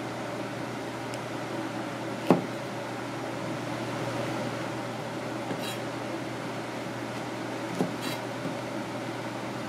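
Steady mechanical hum of kitchen machinery, with a sharp knock about two seconds in and a smaller one near the end, along with a few faint clicks.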